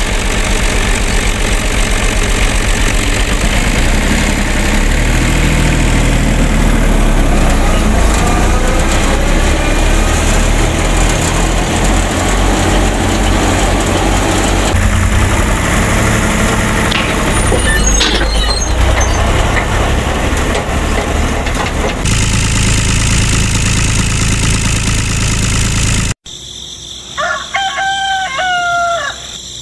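A machine running steadily with a low hum and mechanical rattle, the drive of a miniature wheat thresher powered by a toy tractor. It cuts off suddenly near the end, and a rooster crows once.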